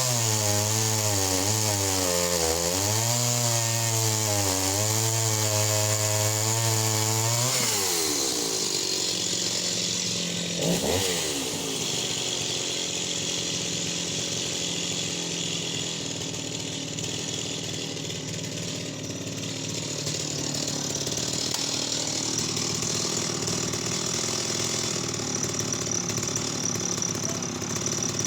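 Stihl 028AV WoodBoss two-stroke chainsaw cutting through a log at full throttle, its pitch wavering as the chain bogs and picks up under load. About 8 s in the pitch drops away as the throttle comes off, and the saw runs on at a lower, steadier speed.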